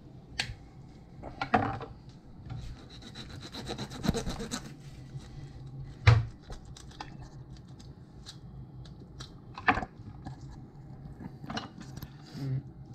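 Kitchen knife sawing and scraping through a catfish on a wooden cutting board, with a run of quick back-and-forth strokes a few seconds in. Scattered sharp knocks of knife and fish against the board, the loudest about six seconds in.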